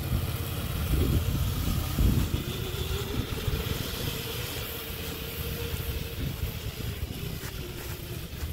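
Homemade electric go-kart driven by a car alternator used as a motor, run from an inverter, pulling away: a steady mid-pitched motor whine that rises a little, holds, and fades near the end, with a fainter high whine above it. Low rumble and a couple of knocks sound about one and two seconds in.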